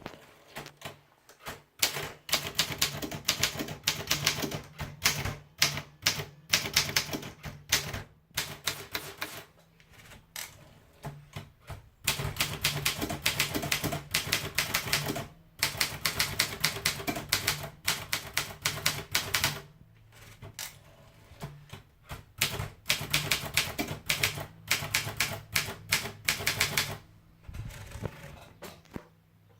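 Optima Elite typewriter being typed on: runs of rapid key strikes lasting a few seconds each, broken by short pauses.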